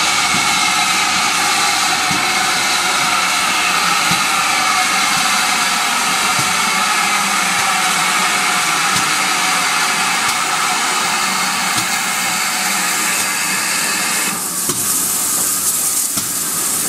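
Steam-hauled train, GWR Manor-class 4-6-0 No. 7822 'Foxcote Manor' with its carriages, slowing into a station with a long shrill squeal of several tones falling slightly in pitch. The squeal cuts off about fourteen seconds in as the train comes to a stand, and a high hiss of steam follows.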